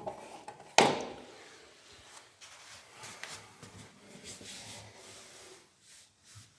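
A single sharp knock about a second in, followed by faint rubbing and handling noises. No alarm siren tone is heard.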